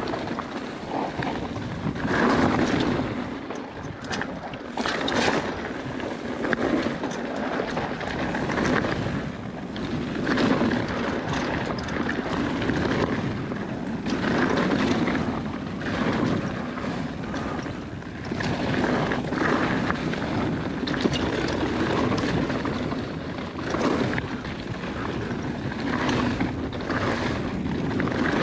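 Mountain bike rolling fast over a rocky, gravelly dirt singletrack: tyres crunching and wind rushing over the camera microphone. The sound swells and fades every couple of seconds as the bike pumps through rolling dips, with a few sharp knocks from the bike.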